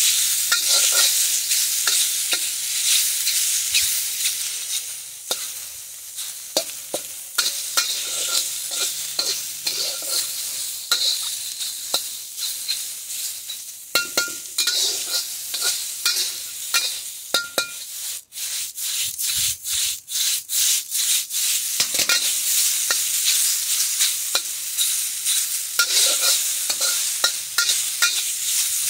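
Food sizzling in a hot wok as a metal wok ladle stirs it, with frequent scrapes and clicks of the ladle against the pan. A run of quick taps comes about two-thirds of the way in.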